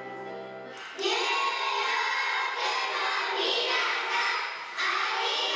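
A chorus of young children's voices in unison delivering a thank-you message, starting about a second in after a soft held musical tone, with a short break shortly before the end.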